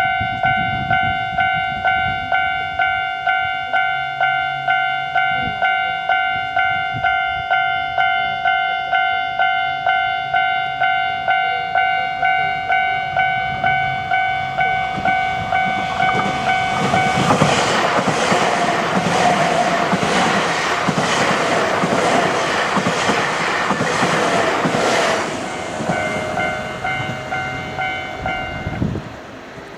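Japanese level-crossing warning bell ringing steadily at about two strikes a second. About halfway through, a Nankai Koya Line train passes over the crossing with its wheels clattering over the rail joints; the bell keeps ringing after it and stops near the end.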